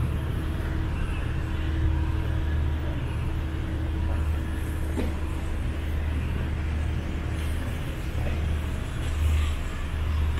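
City street traffic: cars and other motor vehicles running past with a steady low rumble, and one short click about five seconds in.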